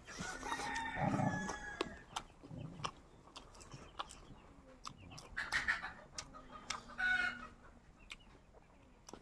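Chickens calling: a held, crow-like call in the first couple of seconds and shorter clucking calls later, with small clicks scattered throughout.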